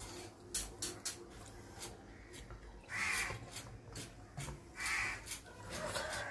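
A crow cawing: harsh calls about two seconds apart, a third starting right at the end, over scattered small clicks.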